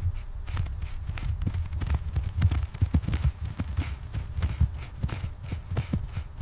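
Irregular light taps and knocks over a steady low rumble.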